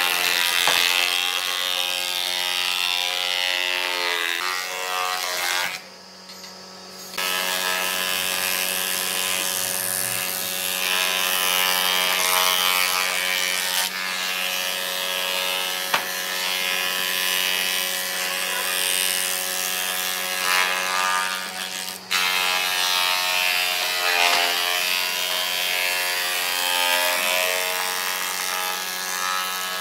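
Combination jointer-planer's cutterhead running and planing boards fed across it, a loud steady machine whir and cutting noise whose pitch sags now and then as the wood is pushed through. It drops out briefly about six seconds in.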